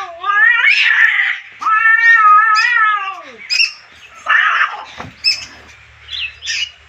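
Cats fighting: two long, drawn-out yowls that rise and fall in pitch, followed by harsh hisses and short sharp cries.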